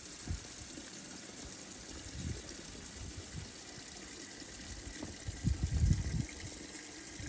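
Steady hiss of rain falling, with a cluster of dull low thumps about five to six seconds in.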